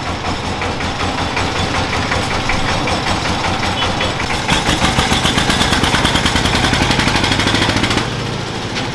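Diesel engine of a three-wheeled farm truck running with a rapid, even knock. It gets louder from about halfway as the truck pulls away, then falls back near the end.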